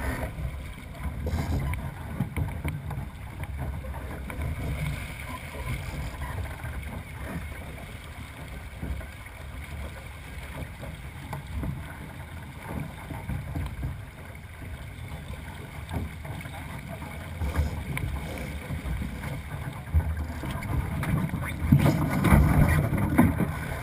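Small sailing dinghy under way: water rushing along the hull and wind buffeting the microphone, steady low rumble that grows louder near the end as the boat heels and throws spray.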